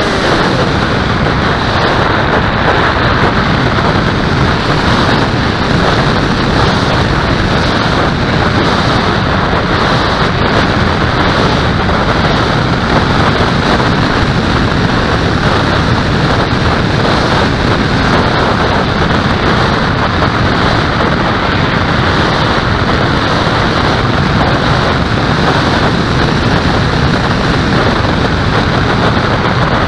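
Steady wind rushing over the microphone of a camera carried aboard a small aircraft in flight. It is a loud, even hiss with no engine or propeller tone in it.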